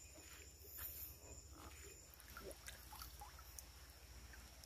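Near silence: faint outdoor ambience, with a steady high hum like insects and a few faint scattered sounds.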